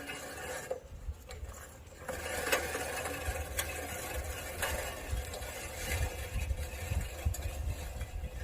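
Small petrol brush cutter engine running steadily, growing louder about two seconds in, with a few sharp ticks.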